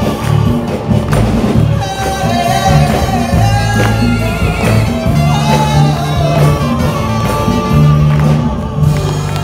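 Live worship band playing a song: voices singing a melody over a steady bass line and percussion, with a trumpet.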